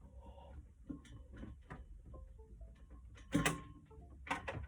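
Handling of a computer keyboard and its cable: scattered light clicks and knocks, with two louder knocks near the end.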